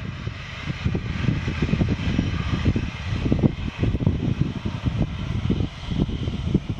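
Boeing 737-800's CFM56-7B jet engines running at high power as the airliner starts its takeoff roll: a loud, steady jet rumble with a rough, fluctuating low end.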